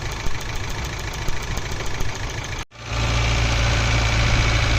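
Geo Tracker's 1.6-litre four-cylinder engine idling unevenly with a misfire, which the mechanic puts down to a spark leak at one spark plug wire. About two and a half seconds in the sound breaks off for an instant, then the idle comes back steadier and louder.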